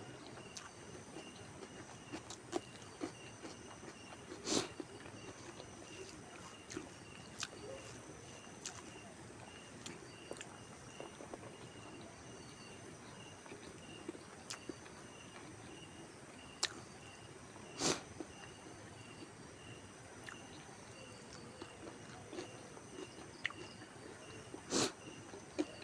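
Faint outdoor background with a steady, evenly pulsing high chirp, like an insect, and a few sharp clicks or knocks now and then, the loudest about four seconds in, about eighteen seconds in, and near the end.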